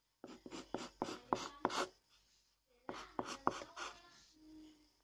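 Pencil scratching on paper in quick back-and-forth strokes, filling in the dark eyes of a drawing, in two runs with a short pause between.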